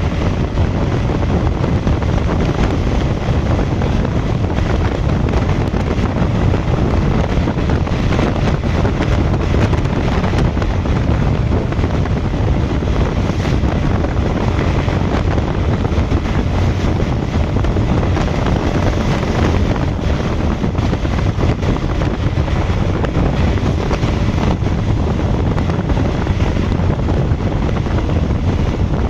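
Steady, loud rush of wind and road noise from a vehicle driving at highway speed.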